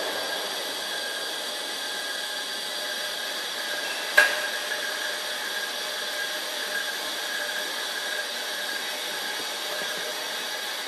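Reisen 620 metal-cutting bandsaw running steadily, its blade cutting through metal stock with a steady whine of several tones. A single sharp click about four seconds in.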